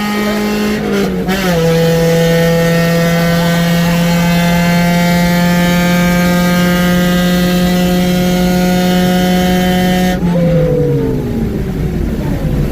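1996 Honda Prelude four-cylinder engine running hard at high, steady revs during a street race, its pitch stepping down slightly about a second in. About ten seconds in the throttle lifts and the revs fall away, with road and wind noise underneath.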